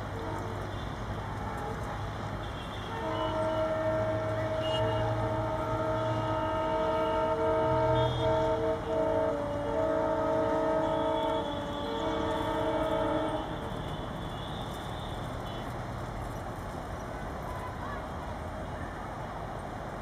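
Indian Railways WDG-3A diesel-electric locomotive with an ALCO 251 V16 engine, chugging under load up a gradient. Its horn sounds from about three seconds in until about thirteen seconds in, as several long honks with short breaks between them.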